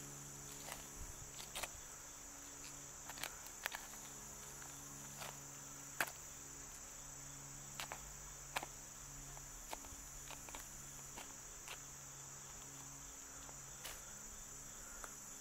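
Steady high-pitched insect chorus, with scattered small clicks and scrapes of a knife cutting wild turkey breast meat away from the breastbone. A faint low hum comes and goes underneath.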